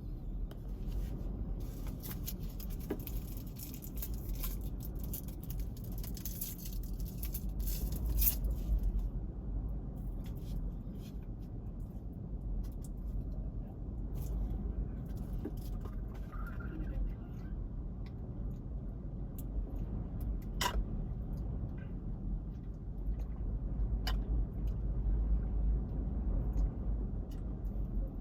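Ocean surf from a typhoon swell: a steady low rush of breaking waves, with scattered sharp clicks over it.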